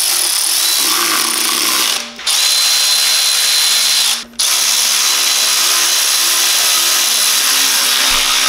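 A handheld power tool's motor running steadily, stopping briefly twice about two and four seconds in. It is driving the bolts that fasten the transmission to the engine.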